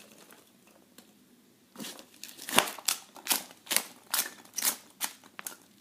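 Packing material in a shipping box rustling and crinkling as items are dug out by hand. After about two seconds of quiet it comes as a run of sharp crackles, about two a second, until near the end.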